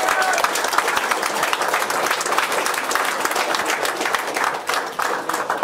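Crowd applauding: many hands clapping in a dense patter that thins out toward the end.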